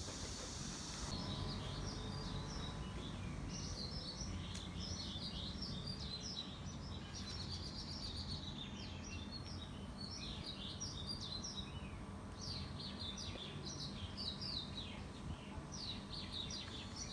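Birds chirping: a dense, overlapping run of short high chirps that starts about a second in and goes on throughout, over a low steady rumble.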